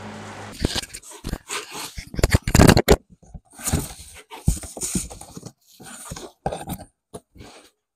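Cardboard box flaps being pulled open and handled, with irregular scraping and rustling of the cardboard and packaging. The loudest scrape comes a little over two seconds in.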